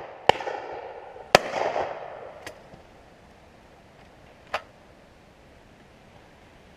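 Shotgun shots: one sharp report just after the start and a louder one about a second later, each followed by about a second of echo rolling away. Two fainter single shots follow, about halfway and two-thirds through.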